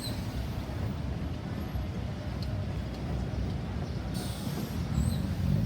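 Low, steady rumble of road traffic and vehicle engines, with a couple of brief high squeaks near the start and again about five seconds in.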